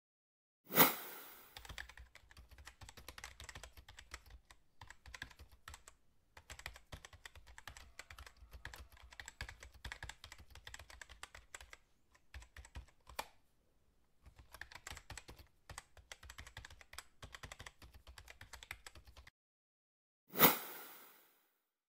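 Computer keyboard typing sound effect: a fast run of key clicks in several bursts with short pauses, accompanying text being typed out on screen. A loud, sudden hit that fades within a second comes about a second in and again near the end.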